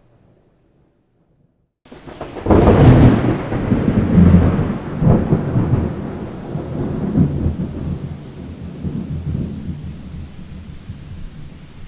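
Near silence for about two seconds, then a long roll of thunder: a loud, deep rumble that peaks twice and is followed by further swells before it slowly fades. A steady hiss of rain runs under it once the sound comes in.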